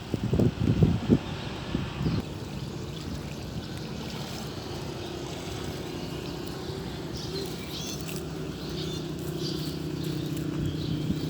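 A few low knocks in the first two seconds, then a small engine running steadily at a distance, slowly growing louder, with birds chirping.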